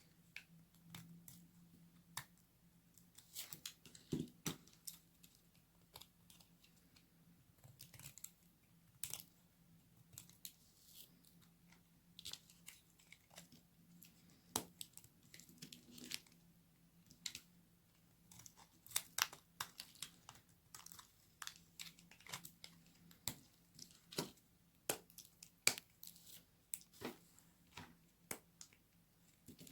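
Knife cutting through very dry soap: a long run of irregular sharp crackles, snaps and crunches.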